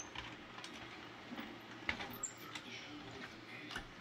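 A toy car being pushed across a tabletop: faint rolling of its wheels with scattered small clicks and knocks, the sharpest about two seconds in.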